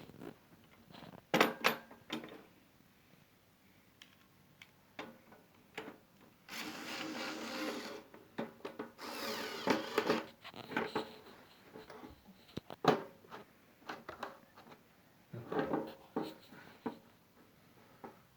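Handling of small toaster parts and tools: scattered clicks, knocks and clatter, with two longer noisy stretches of about a second and a half each, beginning roughly six and nine seconds in.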